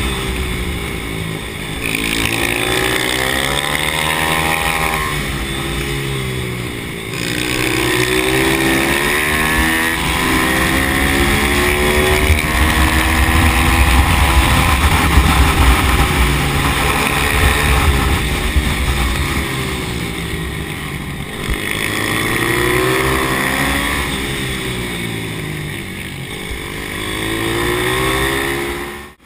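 Single-cylinder pit bike engine heard from on board at full racing pace. The revs climb in rising sweeps on the straights and drop back for the corners, over and over.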